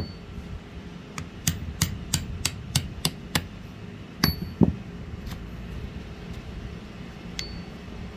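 A series of light hammer taps on metal, about eight evenly spaced ringing strikes at roughly three a second, then a single heavier knock about four and a half seconds in: the rocker shaft being tapped through a Triumph 650 rocker box.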